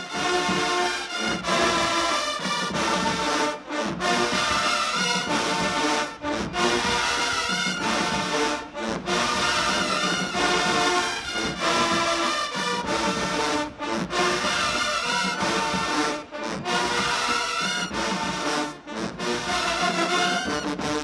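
Marching band's brass section playing a loud, full tune led by trombones and trumpets, in short phrases broken by brief stops about every two to three seconds.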